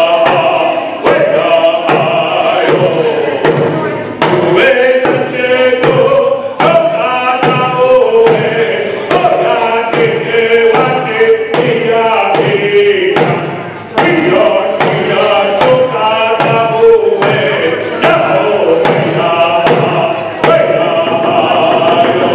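A man singing a Native American song in a chanting voice, accompanying himself on a hand-held hide frame drum struck with a beater in a steady beat.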